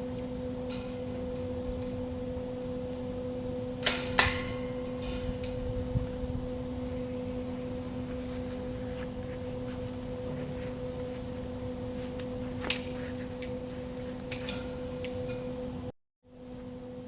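Steady electrical hum, like mains-transformer hum, with a few sharp metallic clanks: two close together about four seconds in and single ones later on. The sound cuts out briefly near the end.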